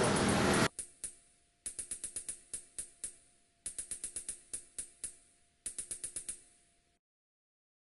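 A loud steady vehicle-like road noise cuts off abruptly under a second in. Short runs of quick, sharp mechanical clicks follow, about one run a second with a handful of clicks in each, over a faint steady hum, until about seven seconds in.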